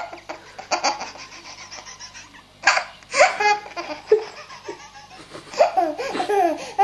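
A baby laughing: short bursts of high-pitched laughter with pauses between them, coming more often near the end.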